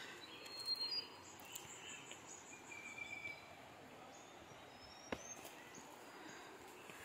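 Quiet forest ambience with scattered faint bird chirps, including a short trill about three seconds in. A few short knocks come just under a second in and again about five seconds in.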